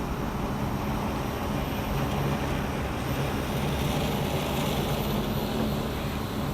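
Multirotor agricultural spraying drone (15-litre tank class) in flight, its propellers giving a steady hum with a faint pitched drone, mixed with low, fluttering wind rumble.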